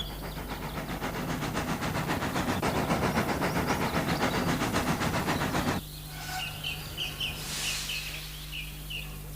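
Steam locomotive sound effect chuffing rapidly and evenly, which cuts off abruptly a little past halfway. Birds then chirp in short repeated calls, with a brief hiss of steam among them.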